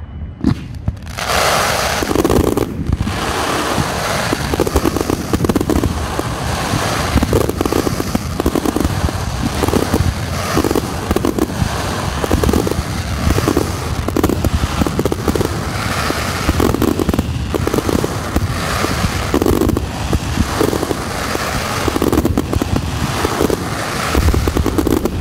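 Fireworks display in a dense barrage: aerial shells launching and bursting in rapid succession over continuous crackling, beginning in full about a second in.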